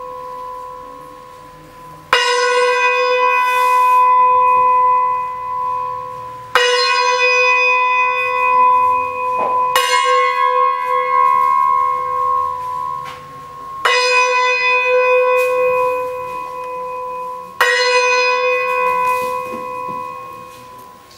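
A metal bell struck five times, about every four seconds, each strike ringing on and fading slowly until the next.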